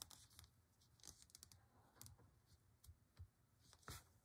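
Near silence with faint, scattered clicks and light handling noise from a metal crochet hook and yarn being worked, the clearest click near the end.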